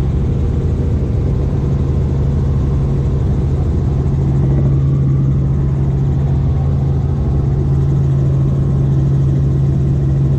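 Light helicopter in cruise flight, heard from inside the cabin: a loud, steady drone of engine and rotors with a constant low hum.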